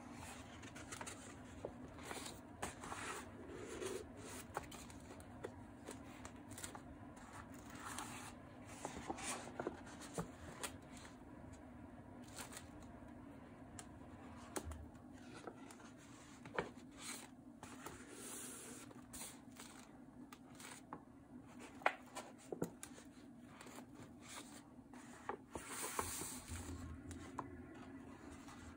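Heavy painted paper of a concertina art journal rustling and crinkling as hands unfold and press its pages flat, with scattered soft rubs and clicks. A steady low hum runs underneath.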